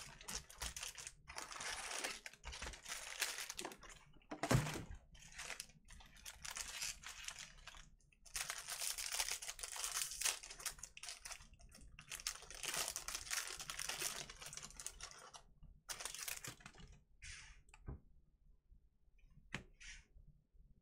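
The foil wrapper of a 2020 Bowman Baseball Jumbo pack being torn open and crinkled by hand, in repeated bursts of crackling. Near the end it gives way to softer, sparse flicks of cards being handled.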